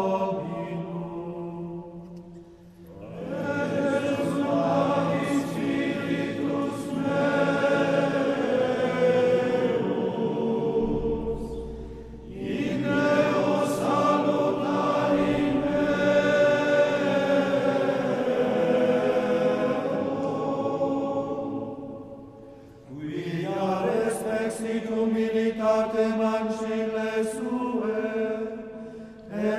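Latin plainchant (Gregorian-style chant) sung in long, flowing phrases, with brief pauses between phrases about 3, 12 and 22 seconds in.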